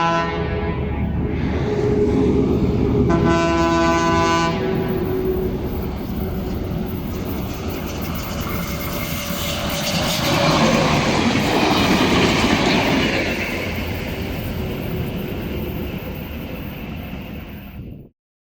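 Locomotive air horn, a Wabco E-2, sounding a chord: one blast ending about half a second in and a second short blast around three seconds in. The train then passes with a loud rumble and wheel clatter that cuts off suddenly near the end.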